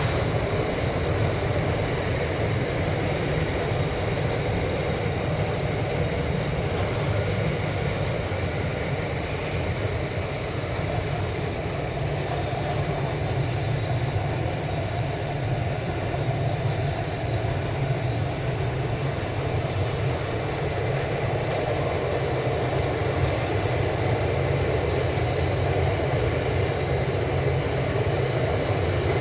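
Train passing, its wheels running steadily on the rails in a continuous, even noise.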